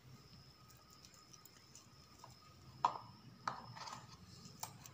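Faint handling noise of a metal-bracelet wristwatch and its box, with a few sharp clicks in the second half as the watch is fitted into the box.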